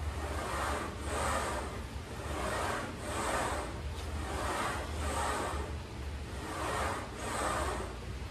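Electric fan's moving air whooshing steadily, swelling and fading about once a second, with a low rumble of air buffeting the microphone.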